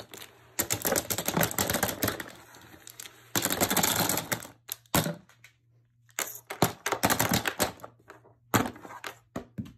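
Disposable plastic vape pens clattering as they are pushed off a desk and drop into a cardboard shoebox, knocking against one another and the box. The clatter comes in several bursts of rapid clicking with short pauses between.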